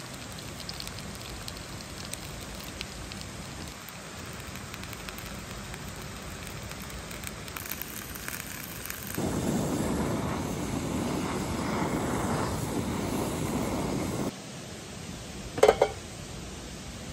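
Steady rush of a mountain stream, then meat-stuffed green peppers sizzling in a frying pan, louder, for about five seconds before cutting off. Near the end comes a brief ringing metal clank, two quick hits.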